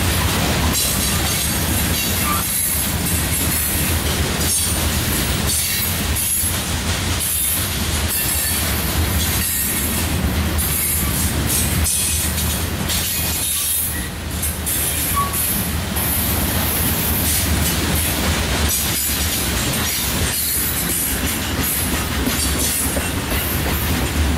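Freight train cars, covered hoppers and then gondolas, rolling steadily past close by. Their steel wheels make a continuous noise on the rail, with occasional clicks as the wheels pass.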